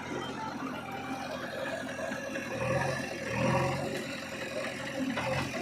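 Diesel machinery engines running steadily, swelling a little louder about halfway through.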